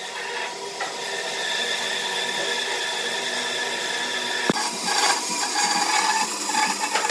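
A steady workshop machine hum under a pen marking pine. About four and a half seconds in, a band saw starts cutting into a pine block, louder and rougher.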